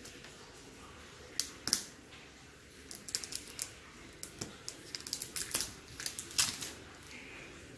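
Irregular light clicks and rustles from handling a new refrigerator and its packaging: two sharp clicks at first, then a busier run of clicks in the middle.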